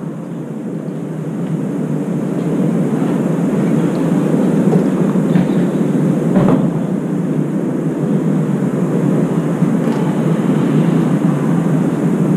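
Steady low rumble of urban background noise, with a faint click about six and a half seconds in; no crow calls.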